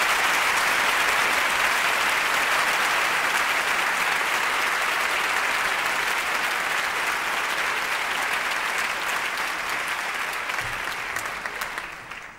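Concert audience applauding at the end of a song, a dense steady clapping that fades and dies away near the end.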